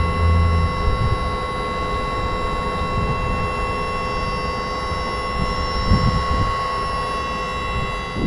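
Steady electric whine made of several high tones over a low rushing hum: the hydrogen fuel cell drive and ancillary equipment of a converted ADL Enviro400 double-decker bus running while the bus stands still.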